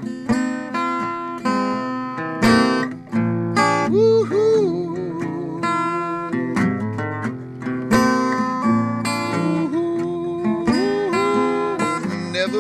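Acoustic guitar strummed in a wordless instrumental passage of a song, a run of chord strokes with some notes bending in pitch.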